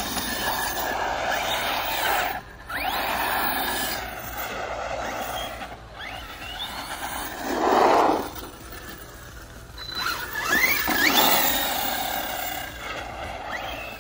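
ARRMA Fire Team RC car, its brushless motor whining and its tyres squealing on asphalt as it brakes, turns and accelerates. A loud scrubbing skid comes about eight seconds in, and a rising whine of hard acceleration follows a few seconds later.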